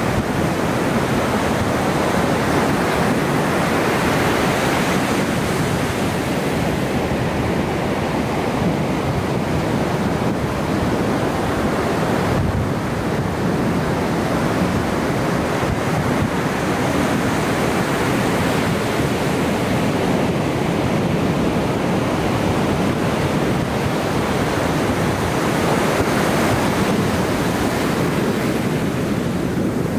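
Ocean surf breaking and washing onto the beach, a continuous rush that swells and eases slowly as waves come in.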